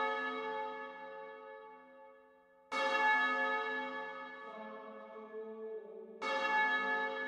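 Church bell tolling slowly: the last stroke's ring fading, then two more strokes about three and a half seconds apart, each ringing on and slowly dying away.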